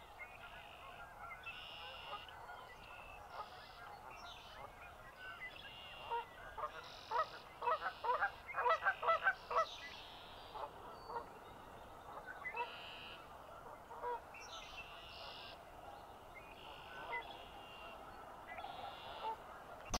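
A flock of large marsh birds calling: short honking calls that crowd together about six to ten seconds in and come more sparsely elsewhere, over a steady chorus of high, repeated trills.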